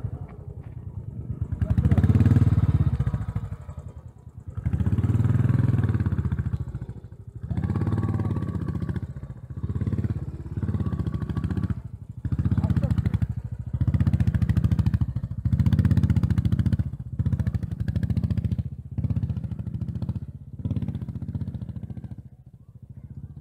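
Royal Enfield Bullet 500's single-cylinder engine running under the rider, the throttle opened and eased off again about a dozen times, every second or two, as the bike picks its way slowly through mud and loose rock.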